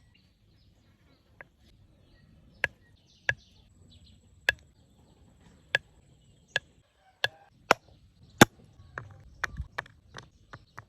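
Chopping: a series of sharp single strikes about once a second, the hardest one past the middle, then quicker, lighter strokes near the end.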